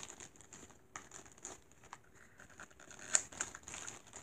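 Faint crinkling and small clicks of plastic toy packaging being handled, with a sharper click about three seconds in.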